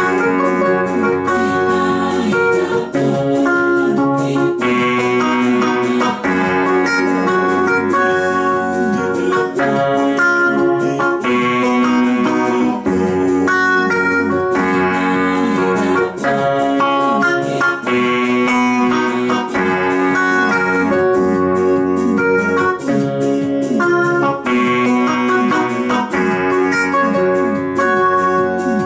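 Technics electronic keyboard played with an organ-like voice: held chords changing every second or two over a steady beat, an instrumental gospel tune.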